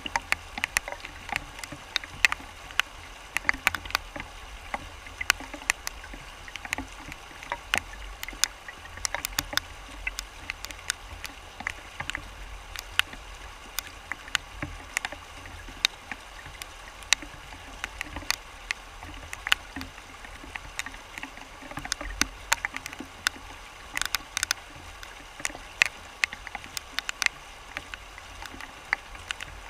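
Shallow river rapids rushing over rocks, heard from close to the water: a steady rush with many irregular sharp splashes and plops.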